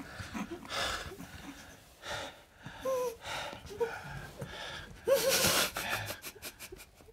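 A woman sobbing: ragged gasping breaths broken by short whimpering cries, with the loudest sob about five seconds in.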